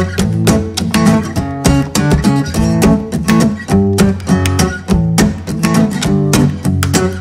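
Background music: strummed acoustic guitar with a steady, quick rhythm.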